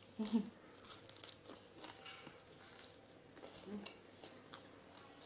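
Crunching and chewing of raw vegetables being eaten, a series of crisp crunches, with a brief vocal sound at the start.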